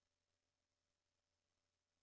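Near silence: only faint electronic hiss and hum.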